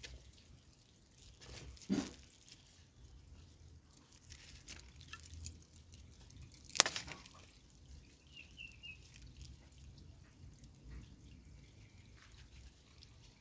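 Thin PE plastic rustling and crinkling as a strip is pulled and tied around a plastic-wrapped ball of soil on a tree branch, with small scattered clicks and two sharp snaps, the louder one about seven seconds in.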